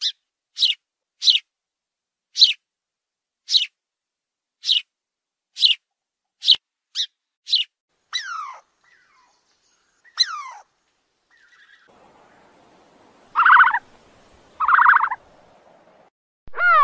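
Eurasian tree sparrows chirping: short sharp chirps, about one a second. After about eight seconds other animal calls follow: two falling calls, then two loud buzzy calls, and a rising-and-falling call starting near the end.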